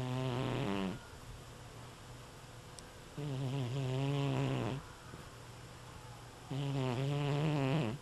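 Sleeping long-haired black-and-white cat snoring: the end of one snore, then two more about three seconds apart. Each is a pitched snore of about a second and a half, with quiet breathing between.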